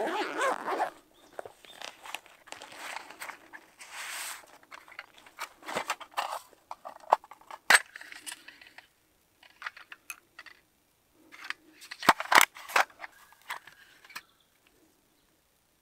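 A fabric gear pouch rustles and rips as it is opened and searched, then a small metal tin is handled and opened, with sharp metallic clicks and clinks, loudest near the end, from the lid and the flints inside.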